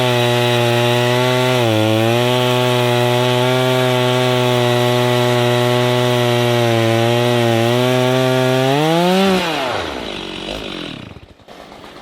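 Two-stroke chainsaw cutting wood at full throttle, its pitch sagging slightly under load a couple of times. Near the end it revs up briefly, then winds down and the engine slows toward idle.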